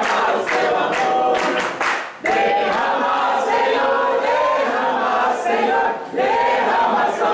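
A crowd singing a birthday song together, with hands clapping along; the singing breaks briefly twice, about two seconds in and near the end.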